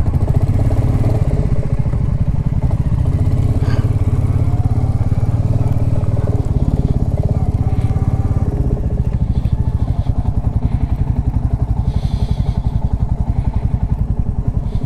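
Royal Enfield Classic 350's single-cylinder engine running steadily as the motorcycle pulls out onto the road and rides on, heard from the rider's seat.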